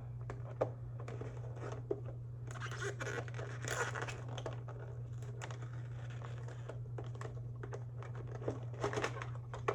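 Plastic wrapping and packaging crinkling, tearing and scratching in a tussle to open a box of cotton rounds, with scattered sharp clicks; the rustling is heaviest a few seconds in and again near the end.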